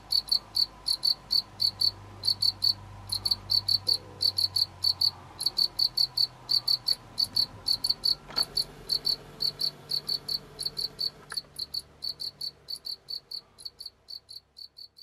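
Male black field cricket singing: a steady run of short, high chirps, about four a second, growing fainter over the last few seconds.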